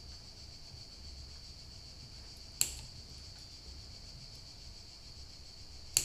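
Small flush cutters snipping a drone's thin motor wire to length: one sharp click about two and a half seconds in and another near the end, over a faint steady high hiss.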